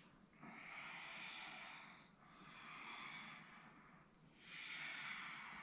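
A woman's faint audible breathing close to the microphone: three long, soft breaths, each about a second and a half.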